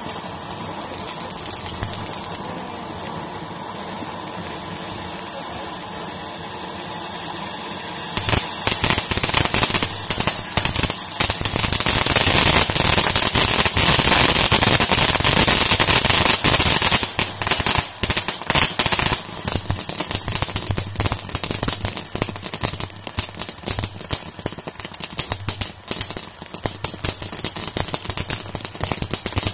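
Consumer firework cakes and fountains going off: a steady hissing spray of sparks for the first several seconds, then from about eight seconds in a dense, rapid run of cracks and pops, loudest around the middle, thinning to scattered crackling near the end.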